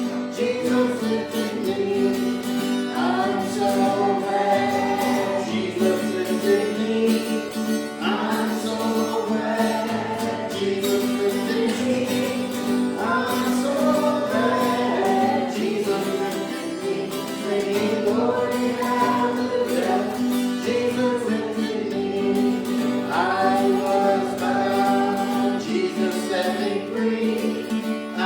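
A group singing a gospel hymn with instrumental accompaniment.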